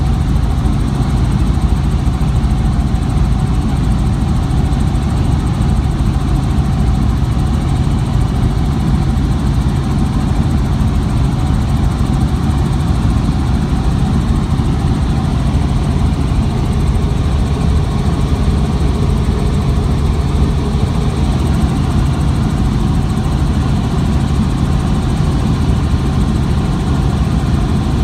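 Steady drone of a small aircraft in flight, heard from inside the cabin: a constant low engine hum with a rushing noise above it.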